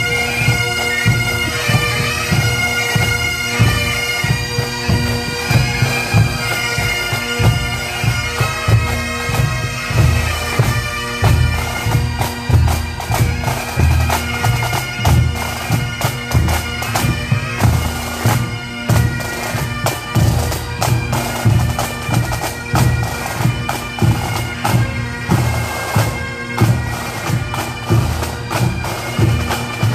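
Pipe band of Highland bagpipes playing a march: a steady drone under the chanter melody, with a regular drum beat. In the second half the higher melody notes grow fainter and the beats stand out more.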